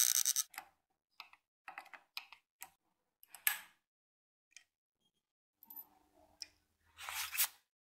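Small steel hand tools working in the brass threaded bushing of an old tire inflator's metal housing: a brief run of scraping at the start, then scattered metallic clicks and short scrapes. The loudest is a scrape about seven seconds in.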